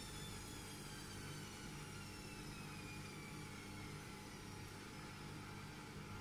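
Faint mechanical whine that falls slowly in pitch over about the first four seconds, over a steady low hum.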